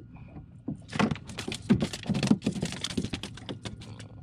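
Quick, irregular clattering and tapping for about two seconds, starting about a second in: a small speckled trout being worked off a jig hook with fishing pliers in the boat.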